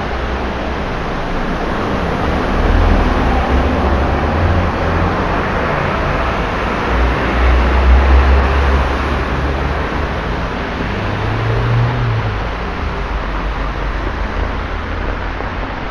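Traffic on a flooded, rain-soaked road: vehicles drive through standing water, and the hiss of wet tyres and spray runs under the low rumble of engines. Vehicles pass loudest about three seconds in and again about eight seconds in, with a further engine hum near twelve seconds.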